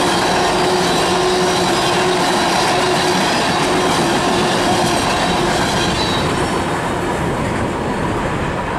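Loaded freight tank cars rolling past on steel rails, the wheels carrying a steady squeal over the rolling noise. The squeal fades out about two-thirds of the way through and the rolling sound eases a little as the last cars pass.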